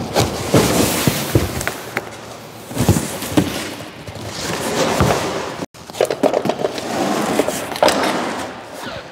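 A large cardboard box scraping and sliding across a tile floor, with thumps and knocks as it is tipped over and handled, and rustling as the packed contents are pulled out.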